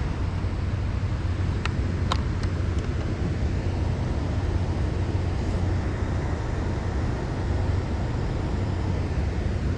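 Tennant 5700 36-volt battery-powered walk-behind floor scrubber running, a steady low hum with a rush over it, and two light clicks about two seconds in.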